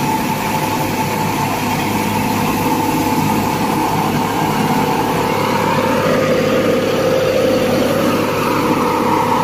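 Railway track tamping machine (sleeper packing machine) with its diesel engine running, a loud continuous drone with several steady tones. The pitch rises and falls slightly about halfway through.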